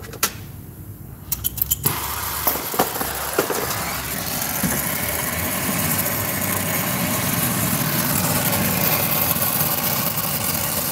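A few sharp clicks of a flint striker, then about two seconds in an oxy-fuel brazing torch catches and burns with a steady rushing hiss. The flame is heating a brazed copper joint on a refrigerator compressor line until the braze melts so the tube can be pulled off.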